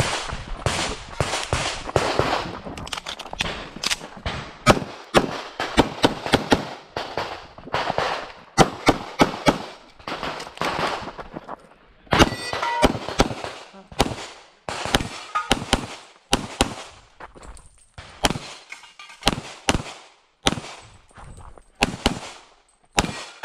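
Pistol shots from an Infinity 2011 in .40 S&W, fired in fast strings of doubles and quick volleys, with brief pauses between strings.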